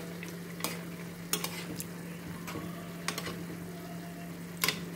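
Chopsuey vegetables and chicken liver sizzling in a frying pan while being stirred, the utensil clicking and scraping against the pan about seven times at uneven intervals, over a steady low hum.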